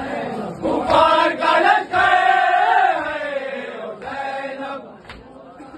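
Men's voices chanting a noha, the Shia mourning lament, in long drawn-out sung lines. It is loudest about a second in and fades out about five seconds in.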